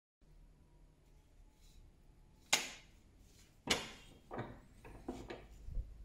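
Sharp metal knocks as a steel knife blade is set into a bench vise and the vise's handle bar is worked: two loud knocks a little over a second apart, then a few lighter clanks.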